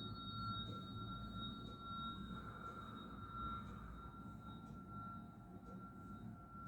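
Tuning fork ringing with a single high, pure tone after being struck, slowly dying away and wavering slightly in loudness. A fainter, higher overtone fades out about halfway through.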